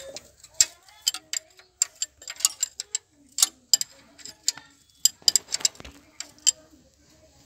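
A steel spanner clinking and clicking against a bolt head on a tractor's crown-wheel and differential carrier as the bolt is worked: a run of irregular sharp metallic clicks that stops about a second before the end.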